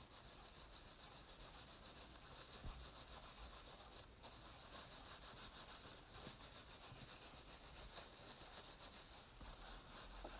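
Hands rubbing wet felting wool over a template, a faint, even swishing of quick back-and-forth strokes; the wool is being compacted so it felts tightly around the template's shape.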